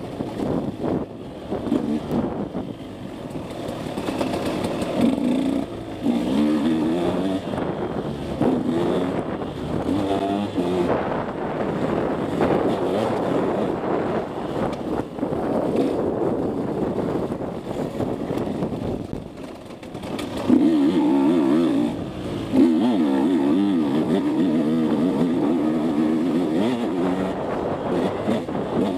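KTM 150 SX two-stroke dirt bike engine revving up and down under throttle as the bike is ridden hard on a trail. The engine eases off briefly about two-thirds through, then runs louder under hard acceleration for several seconds.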